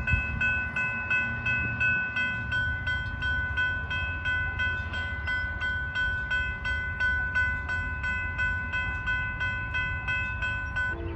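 Railroad grade-crossing bells ringing in a rapid, even series of strikes, about three a second, while the crossing lights flash and the gates lower. Near the end the bells stop and a train horn begins to sound.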